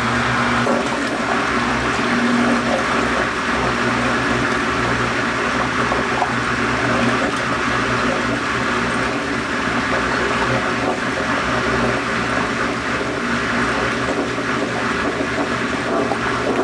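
DELLA portable twin-tub washing machine: a steady rush of water with a low motor hum underneath.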